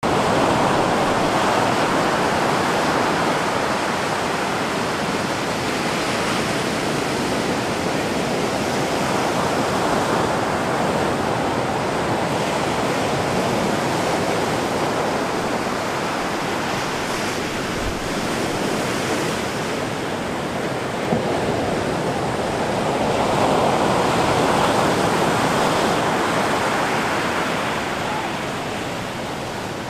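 Ocean surf: waves breaking and washing in, a steady rush of water that swells and eases every several seconds.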